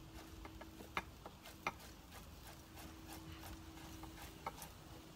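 Knife chopping grilled scallions on a cutting board: faint, irregular knocks of the blade striking the board.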